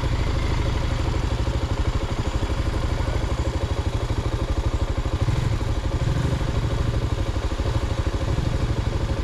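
Motorcycle engine idling steadily, its firing pulses even and unbroken.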